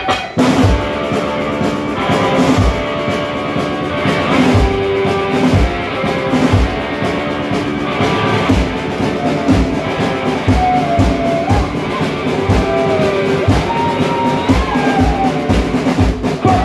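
Live rock band playing: electric guitar and drum kit, with a steady kick-drum beat under sustained guitar lines.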